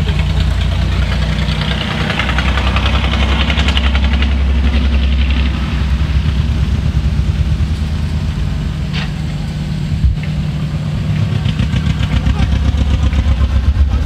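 Scale RC off-road truck crawling through mud, with a steady, pulsing engine-like rumble and bursts of higher-pitched mechanical rattle as it works over the ground; a single knock about ten seconds in.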